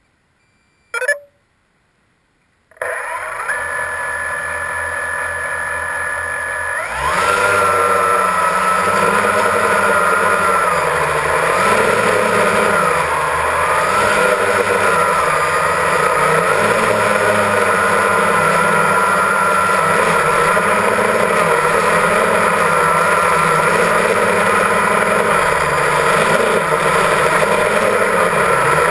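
Quadcopter drone's electric motors and propellers. After a short sharp sound about a second in, the motors start with a steady whine. About seven seconds in they spin up with a rising pitch as the drone takes off, then run on at flight speed, the pitch wavering as the throttle shifts.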